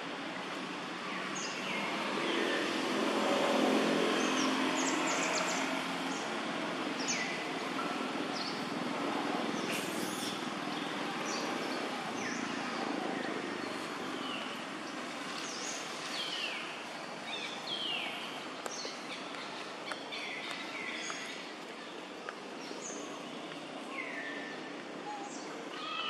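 Outdoor ambience with a steady background hiss. Short, high, falling bird chirps are scattered throughout. A low rumble swells and fades in the first several seconds.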